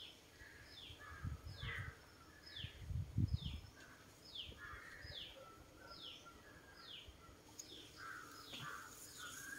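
A bird calling a steady, repeated series of short downward-sliding notes, a little more than one a second, with a few low bumps or rumbles, loudest about three seconds in.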